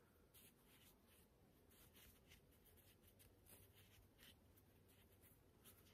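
Near silence with faint, soft flicks and rustles of cotton charm squares being leafed through by hand.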